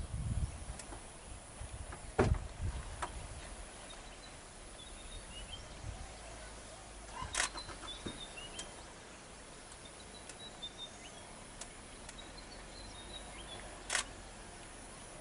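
Outdoor wetland ambience: a steady low background with faint, scattered bird chirps, a few low thuds in the first three seconds, and two sharp clicks, one about seven seconds in and one near the end.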